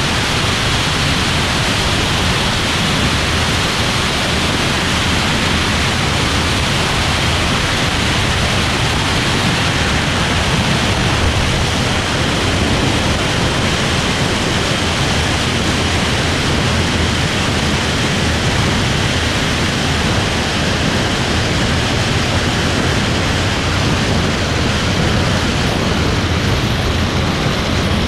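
Steady rushing noise of airflow and engine over a wing-mounted camera on a T-28 Trojan rolling down the runway after landing, an even roar with no distinct beats or tones.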